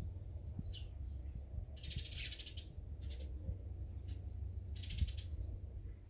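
Songbirds calling in short bursts of fast, chattering chirps, with two longer bursts about two seconds in and near five seconds, over a steady low rumble.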